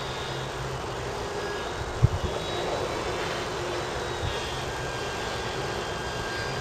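Foam RC model airplane flying, its motor and propeller giving a faint thin whine that shifts slightly in pitch over a steady hiss. A short thump about two seconds in.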